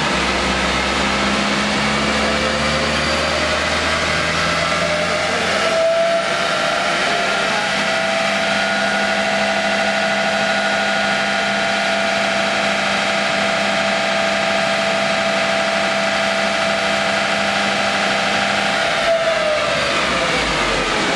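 Nissan 200SX engine run on a rolling road: the revs climb over the first six seconds, break briefly, then hold steady at high revs for about thirteen seconds before dropping away near the end.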